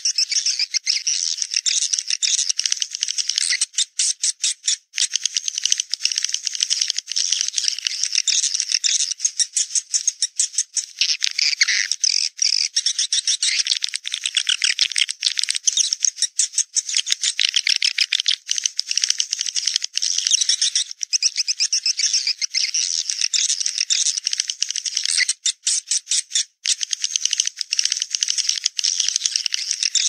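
Edible-nest swiftlet calls played as a lure to draw swiftlets to a nest house: a dense, high-pitched, rapid chittering and twittering, broken by a few short gaps.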